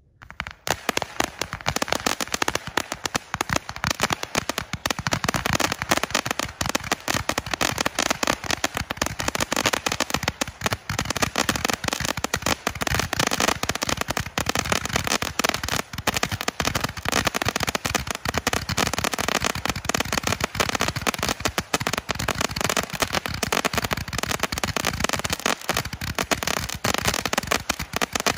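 A 666-shot super candle firework firing a rapid, unbroken volley of sharp pops, many shots a second. The volley starts within the first half second.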